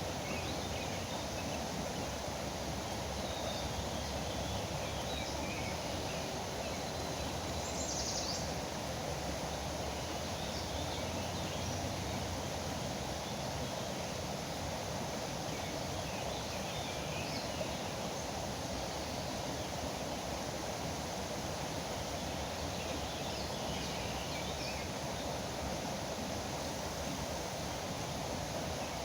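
Steady rush of flowing river water, with faint scattered bird chirps over it and one clearer high call about eight seconds in.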